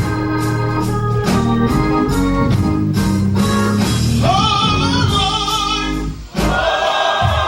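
Gospel music: organ and band playing over a steady beat, then a choir comes in singing about four seconds in. The choir breaks off briefly and comes back.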